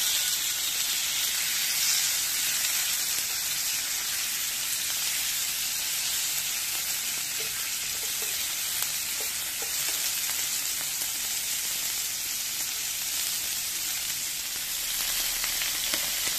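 Rump steak, asparagus and button mushrooms sizzling steadily on a hot ridged grill plate.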